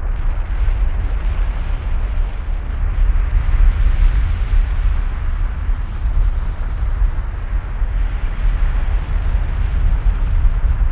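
Kilauea lava fountain: a continuous deep roar of noise, heaviest at the low end, with no separate bangs.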